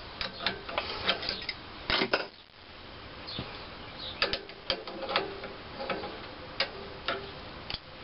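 Irregular metal clicks and taps of a wrench working the exhaust valve push-rod adjustment of a 1926 McCormick-Deering Type M engine as it is turned outward, some clicks ringing briefly, with the loudest cluster about two seconds in.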